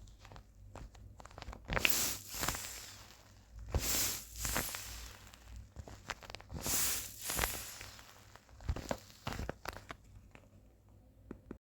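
Packaging being handled and wrapped by hand: rustling and tearing noises in several swells, with scattered small clicks and taps.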